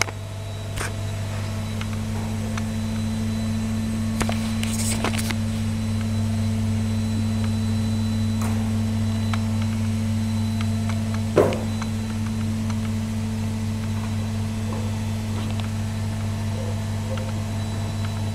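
Steady low mechanical hum, like an appliance or fan running, with a few faint clicks and one brief louder sound about eleven seconds in.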